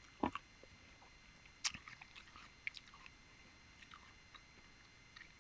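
Close-miked mouth sounds of a person eating mango: soft chewing with scattered wet clicks and smacks, the sharpest about a quarter of a second in and just past one and a half seconds.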